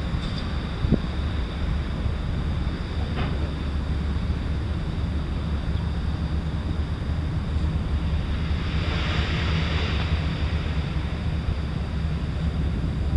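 Wind buffeting the microphone over a steady low rumble, with a hiss that swells and fades about nine seconds in.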